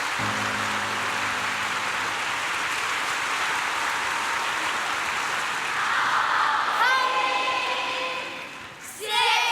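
Audience applauding steadily after a performance, with a voice briefly calling out over it near the end.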